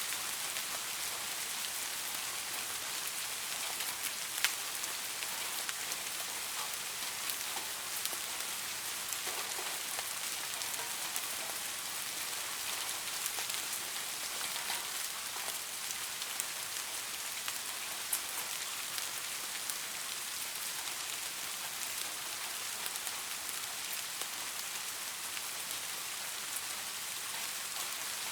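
Steady rain falling on leaves, an even hiss with scattered individual drops ticking through it, one louder drop about four seconds in.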